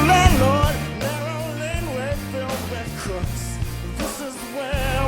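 Background rock music: a full band track with guitar and drums, a little softer after about a second in.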